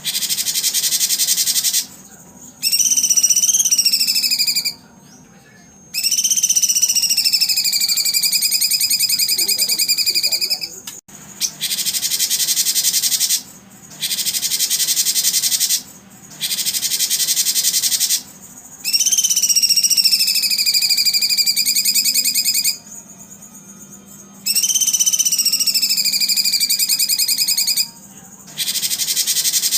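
Songbird training recording: stretches of high, buzzing trill about two seconds long with short gaps between them, alternating with long whistled notes that fall slowly in pitch. The pattern repeats like a loop.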